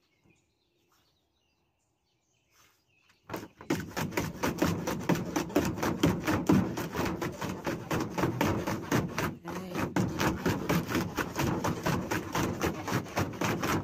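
A dog moving about in a plastic wading pool makes a quick, steady run of clicking and scuffing sounds, about five a second, that starts about three seconds in.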